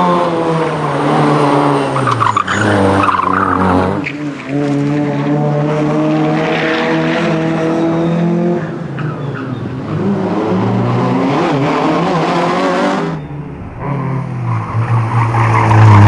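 Citroen Saxo rally car's engine revving hard and backing off again and again as it is driven through a tight cone and barrier course, its pitch rising and falling with each burst. The tyres squeal in the turns. The engine dips briefly near the end, then comes back at its loudest.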